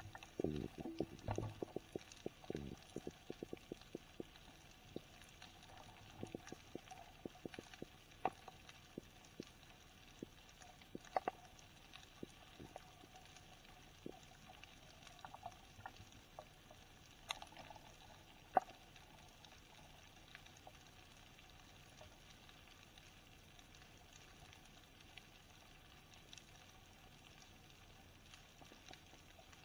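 Underwater sound picked up through a camera housing on a rocky seafloor: a faint steady hiss with irregular clicks and low knocks. The knocks are thickest in the first three seconds, and one sharp click stands out about 18 seconds in.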